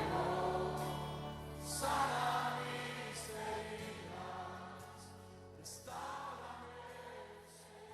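Worship music with singing voices, fading out gradually toward the end.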